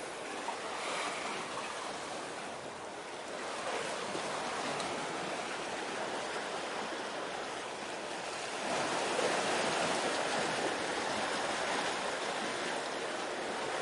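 Steady rushing wash of water, like waves at the shore, growing louder about eight and a half seconds in.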